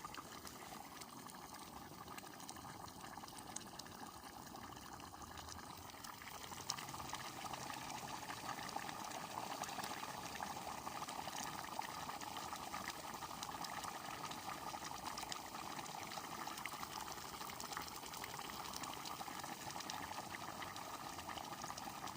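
Goulash bubbling in a kotlić cauldron: a steady simmering hiss with many small pops, growing louder about six or seven seconds in.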